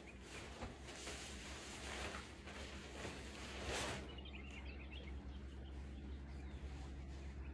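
Tent fabric rustling and swishing as a tent is being pitched, loudest near four seconds in, with birds chirping in the background.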